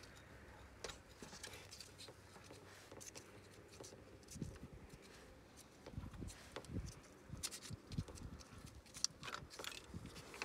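Faint small clicks and scrapes of a spark plug socket on a long extension being turned by hand, unscrewing a spark plug from the cylinder head, with a few dull thumps about halfway through.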